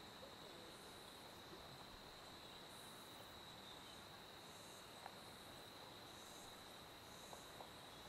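Faint forest ambience: a steady, high-pitched insect trill, with a few soft clicks about five and seven seconds in.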